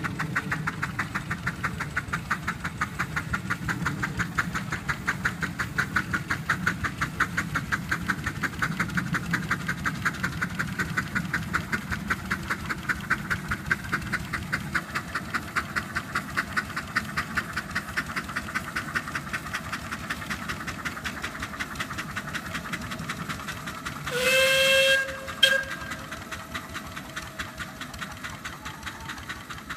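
Miniature steam locomotive working a passenger train, its exhaust beating in a rapid, even rhythm that slowly fades as it draws away. Late on, the steam whistle gives one blast of about a second, then a short toot.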